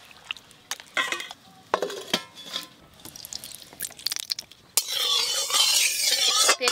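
Hands squishing and stirring spice-coated fish pieces in a steel bowl, with scattered clicks and scrapes. About five seconds in, a steady sizzle starts suddenly as oil heats in an aluminium kadai over a wood fire.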